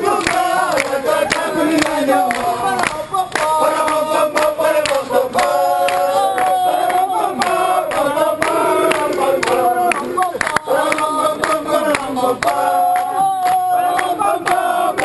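A group of men singing a chant together in chorus, with hand claps through it.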